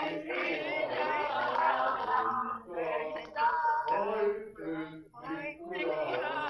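Several older men and women singing together over a video call, heard through a tablet's speaker, their voices not quite in step.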